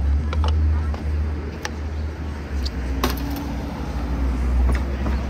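City street noise: a steady low rumble with scattered sharp clicks and snatches of voices.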